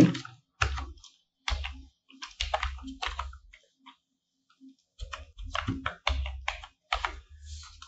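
Typing on a computer keyboard: quick keystrokes in two runs, with a pause of about two seconds between them.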